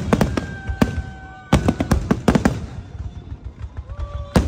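Aerial fireworks shells bursting overhead in a run of sharp bangs, with a dense cluster about a second and a half in, a lull, then a loud bang near the end.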